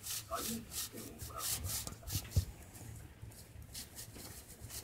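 A strip of paper rubbed back and forth over a wooden floor in quick scratchy strokes, about three a second, with a couple of soft knocks about halfway through.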